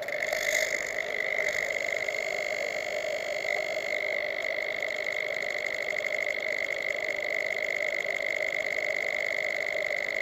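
Steady electric whine from a quadcopter resting on the ground, two held tones, one high and one lower, that do not change.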